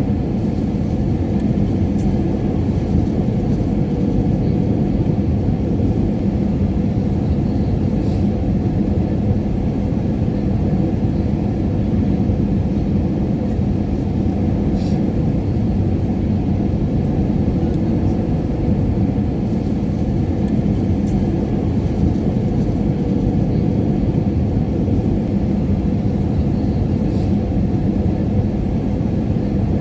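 Jet airliner cabin noise in cruise: a steady low rumble of engines and airflow with a faint constant hum, heard from inside the cabin.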